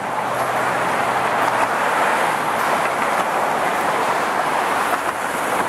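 Steady rush of road and wind noise from a moving car, with a faint low hum in the first second and a half.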